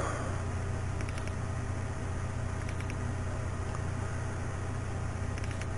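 Steady low background hum with a few faint computer mouse clicks: about a second in, around three seconds in, and near the end.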